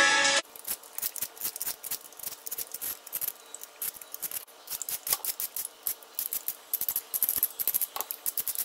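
Y-shaped vegetable peeler scraping over a raw potato and then a carrot in quick, uneven strokes. Background music stops about half a second in.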